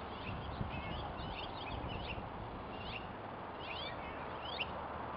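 Songbirds chirping: a run of short, quick chirps, roughly two or three a second and irregular, fairly faint over a low background rumble.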